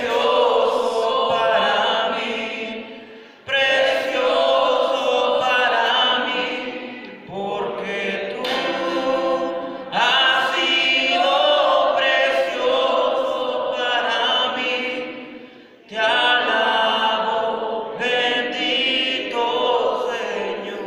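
Live church worship: voices singing a Spanish praise song over guitars and drums, in long phrases that begin strongly and fade away, a new phrase starting about every six seconds.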